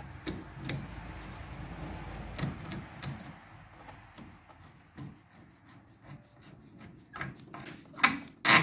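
A nut driver turning the worm screw of a steel hose clamp to tighten it on a radiator hose: rubbing and scraping with scattered clicks, and a few louder sharp knocks near the end.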